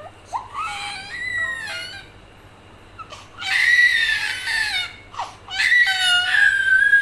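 A small child crying in three high-pitched wailing bouts, with short breaks for breath between them.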